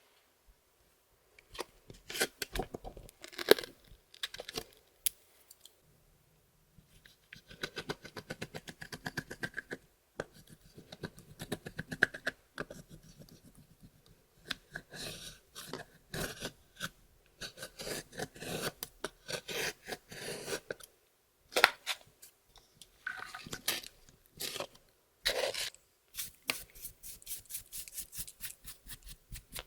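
Hands working clear slime with makeup and glitter mixed in: quick sticky clicks and pops in irregular bursts, with short pauses between them.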